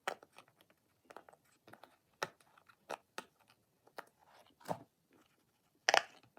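An owl puppet fidget being squeezed and worked in the hands, giving short crinkly crunches and clicks at irregular intervals, louder near the end.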